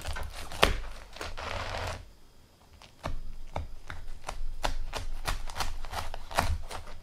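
Pizza with a browned crust being cut into a slice: a run of short crunching clicks, about three a second, with a brief scraping rasp about a second in and a short pause partway through.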